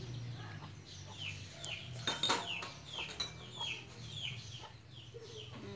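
Chickens calling nearby, a steady string of short high falling calls, with a brief clatter of metal utensils about two seconds in.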